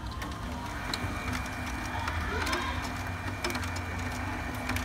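HP Color LaserJet Pro MFP M177fw laser printer initializing after power-on: its motors and gears run with a steady whir. A higher tone sets in about a second in, with a few scattered clicks.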